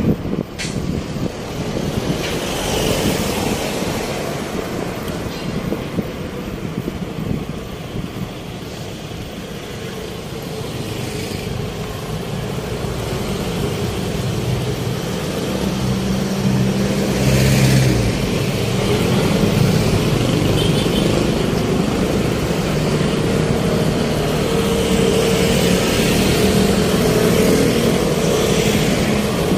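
Road traffic: cars and trucks passing with engines running, a continuous wash of vehicle noise that grows louder in the second half.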